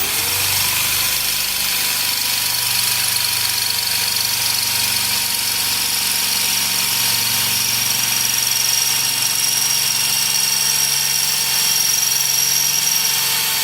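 Power drill spinning up and then running steadily under load as the bit bores into the head of the bolt that holds an ignition switch.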